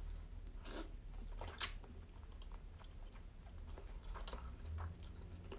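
Close-miked mouth chewing of tuna-stuffed squid: faint wet clicks and squishes, a few louder ones at irregular moments, over a steady low hum.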